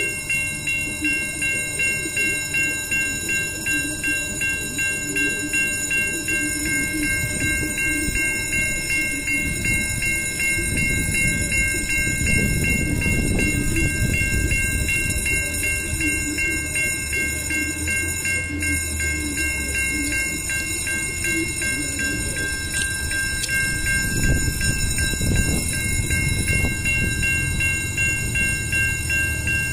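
Level-crossing warning bell ringing steadily as a train approaches, pulsing about twice a second. A low rumble swells around the middle and again near the end.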